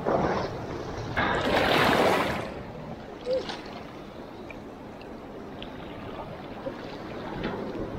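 Shallow seawater sloshing and washing over mussel-covered rocks. There is a louder splashing rush between about one and two and a half seconds in, then a few small splashes and clicks as a mussel is lifted out of the water.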